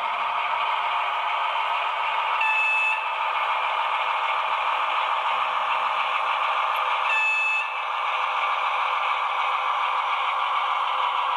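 Model V100 diesel locomotive running with its train of coaches, a steady running noise throughout. Two short, high horn toots sound, one about two and a half seconds in and another about seven seconds in.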